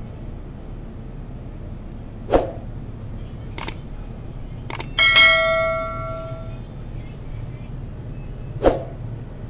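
A few sharp knocks, and about halfway through a metallic clang that rings on for over a second as it fades, over a steady low hum.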